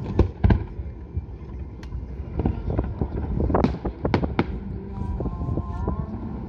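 Fireworks display: aerial shells bursting in an irregular series of sharp bangs. The loudest comes about half a second in, and a tight run of strong bursts follows between three and a half and four and a half seconds.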